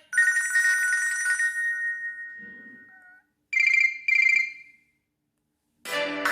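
Nokia Asha 300 alert tones playing in turn: a chime of two steady tones that fades out over about three seconds, then two short high beeps. Near the end, silence gives way to the start of a musical ringtone.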